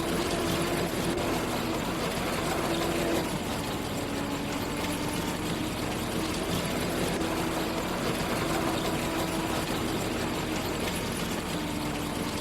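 Farm machinery engine running steadily during the wheat harvest, a continuous mechanical hum that dips slightly in pitch about three seconds in.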